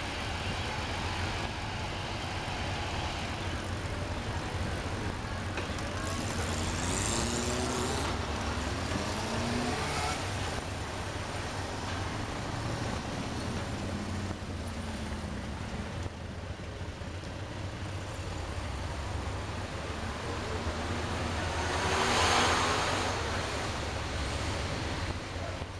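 Road traffic heard from inside a car: a steady low engine hum, a nearby engine revving up in steps about six to ten seconds in, and a louder vehicle swelling past near the end.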